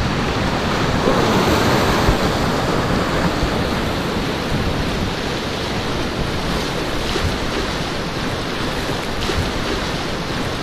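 Whitewater rapids at high flow rushing and splashing close around an inflatable kayak, a steady, dense wash of water noise, a little louder in the first few seconds.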